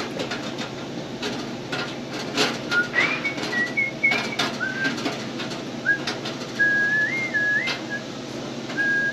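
Someone whistling a tune in short, held notes that step up and down in pitch, starting about three seconds in. Under it, light clicks and taps of gloved hands working at the fitting beneath a copper gas lantern.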